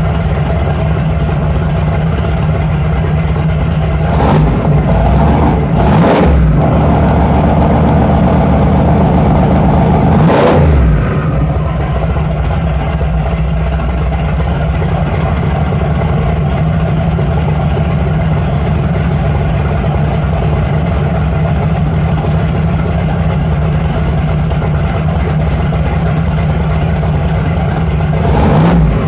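Chevy S10's carbureted engine idling, with a few short throttle blips in the first ten seconds and another near the end. The Quick Fuel carburetor is running it very rich, rich enough to foul the plugs.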